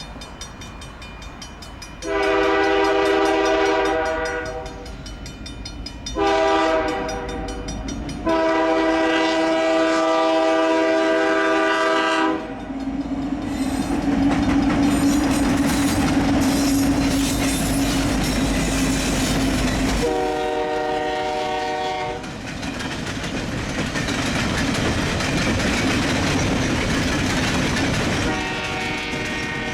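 CN diesel freight locomotive's air horn sounding a chord in three blasts, a long one, a short one and a longer one of about four seconds. Then the locomotives pass with a steady low engine drone and wheels clattering on the rails, and the horn sounds briefly twice more.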